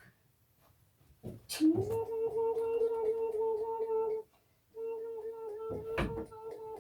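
A voice humming two long steady notes on the same pitch, the first sliding up into it, with a short break between them. A sharp knock comes under the second note.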